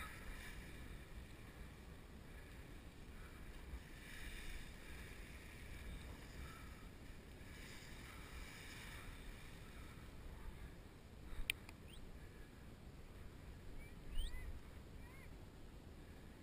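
Wind buffeting the microphone while the nylon fabric of a sand-laden paraglider wing rustles as it is handled. A sharp click comes about eleven seconds in, and a few short rising squeaks follow a few seconds later.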